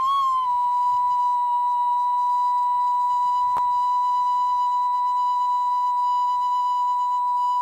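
Background music: a flute holding one long, steady note, with a slight waver as it begins. A brief click about halfway through.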